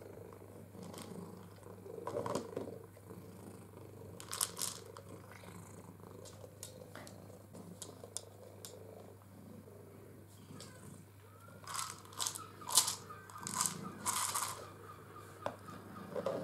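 PetSafe SlimCat ball feeder, a hard plastic treat ball, rattling and clattering as it is batted and rolled across a laminate floor, in scattered bursts with the loudest cluster about twelve to fifteen seconds in.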